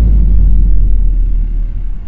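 Deep, loud bass rumble of an intro logo sound effect, the tail of a cinematic boom, fading slowly.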